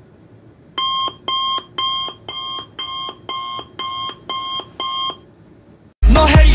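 Electronic alarm beeping: nine evenly spaced, identical beeps, about two a second. Loud music starts near the end.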